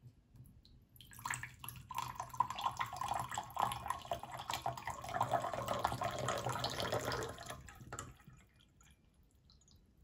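Water pouring in a thin stream from the spout of a small Yixing clay teapot into a glass pitcher. It starts about a second in, runs steadily, and tapers off to a trickle about eight seconds in as the pot drains.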